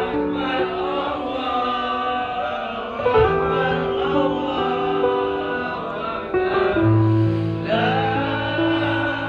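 Music with a choir singing a slow melody in long held notes that step from pitch to pitch.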